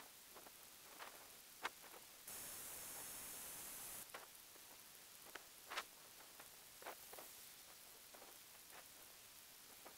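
Near silence: faint scattered ticks, with a steady hiss lasting nearly two seconds starting about two seconds in.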